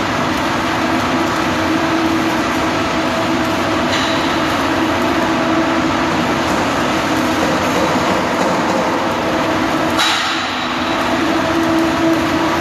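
Arc welding inside a large steel tank: a steady crackling hiss over a low hum, broken by a sharp click about four seconds in and another near the end.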